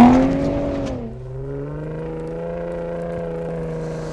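Ford F-150 Raptor's high-output 3.5-litre twin-turbo EcoBoost V6 engine, loudest at first with the revs dropping over the first second, then running at a steady note.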